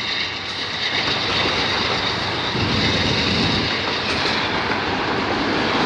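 Freight train of autorack cars rolling past at speed, a steady noise of steel wheels running on the rails.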